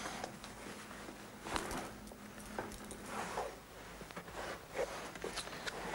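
Clothing rustle and small handling noises, a string of short, irregular scrapes, as a man searches his coat for his spectacles and puts them on.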